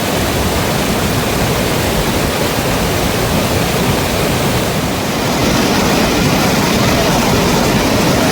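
Rushing mountain river water: a steady, loud roar of flowing water, a little louder from about five seconds in.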